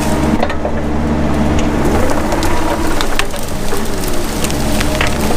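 Mini excavator engine running steadily under load while brush and small trees crackle and snap as they are broken and pushed over, with repeated sharp cracks throughout.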